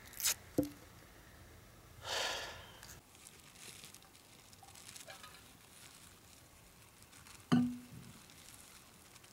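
Small clicks and a short rustle as a bell pepper is cut up with a knife over a paper towel on a wooden picnic table, then a single sharp knock with a brief low ring about three-quarters of the way through.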